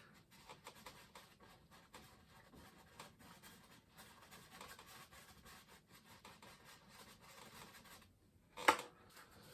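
Soft, irregular strokes of a paintbrush scrubbing and blending oil paint on canvas while a cloud is painted in. A brief louder sound comes near the end.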